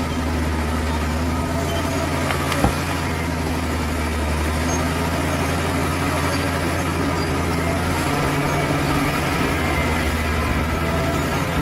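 Bulldozer's heavy diesel engine running steadily under work, with a single sharp knock about three seconds in and the low engine note shifting about eight seconds in.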